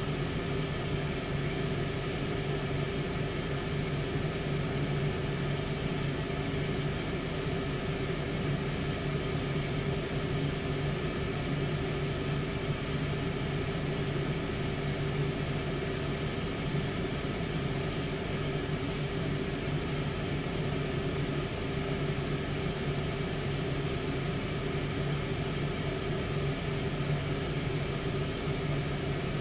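Tower air fryer oven running, its fan blowing with a steady, unchanging hum and hiss.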